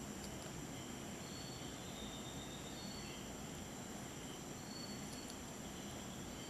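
Faint steady background hiss with a constant high-pitched whine and a few faint, short high chirps at irregular intervals.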